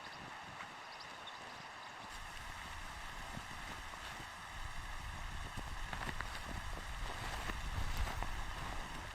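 Wind buffeting the microphone in a snowstorm. A low rumble picks up about two seconds in and grows stronger, with scattered light clicks and taps over a steady hiss.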